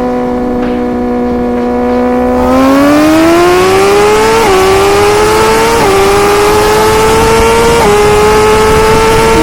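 High-revving vehicle engine holding a steady pitch, then accelerating hard through the gears: the pitch climbs and drops sharply at each of three upshifts before holding high.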